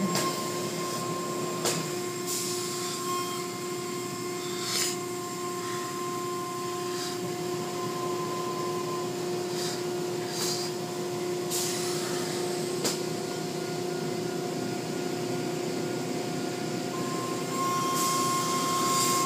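Automatic car wash machinery running: a steady motor hum with a few held tones, cloth brush curtains and water spray washing over the car, and several short knocks along the way.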